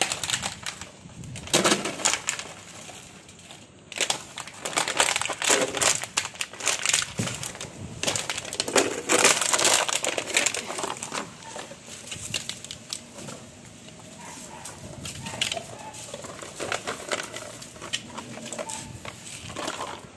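Belgian Malinois puppies chewing and crushing empty plastic water bottles: irregular crinkling crackles, loudest in bursts during the first half and lighter later on.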